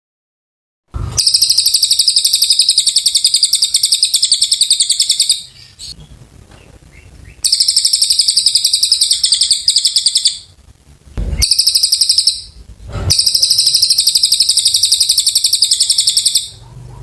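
Cililin bird singing its long, chattering song: four long bursts of very rapid, high-pitched repeated notes with short pauses between them.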